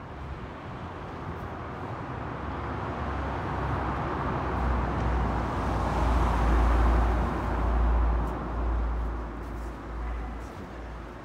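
A road vehicle passing close by: its engine rumble and tyre noise build over several seconds, peak a little past the middle, then fade away.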